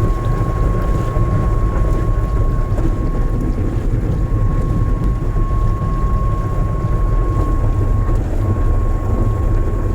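Heavy rain with a loud, deep, steady rumble. A thin, steady high tone sounds alongside it and breaks off briefly about eight seconds in.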